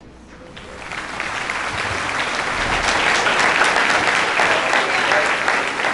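Congregation applauding, the clapping building up over the first couple of seconds and then holding steady.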